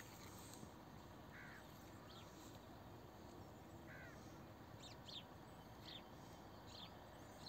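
Near silence: faint room hiss with a few brief, faint bird chirps in the background.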